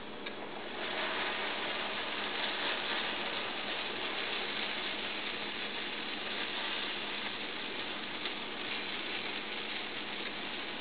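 Squash pancake batter sizzling in melted butter on a hot cast iron griddle. The sizzle swells about a second in, as the batter goes on, then holds steady.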